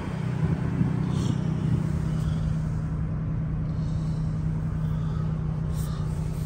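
2023 Ford F-150 Raptor's twin-turbo V6 idling steadily: a low, even hum with a constant drone.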